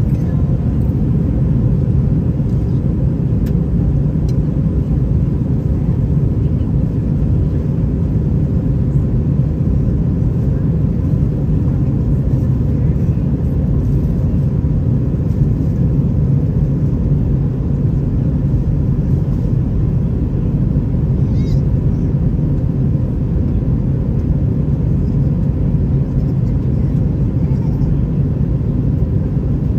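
Airbus A320-212 in flight: a steady, even rumble of engine and air noise, heaviest in the low end, with a faint steady hum above it.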